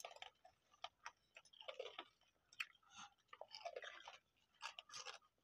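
Faint, close chewing of fried rice pitha: irregular small crunches and mouth clicks.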